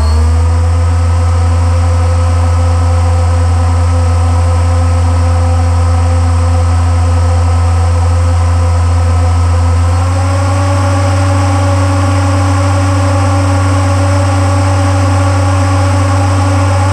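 Boat motor running steadily under way, its pitch stepping up slightly at the start and again about ten seconds in as the throttle is opened a little.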